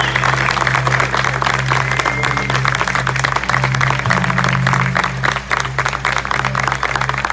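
Audience clapping and applauding over live music that holds low, sustained bass notes.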